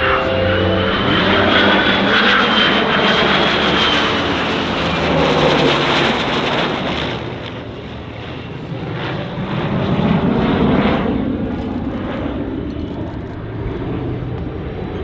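Aircraft in flight: the F-22 Raptor and A-1 Skyraider heritage-flight formation passing, jet engine noise mixed with a propeller engine. The sound is loud and continuous, fades a little, then swells again about ten seconds in.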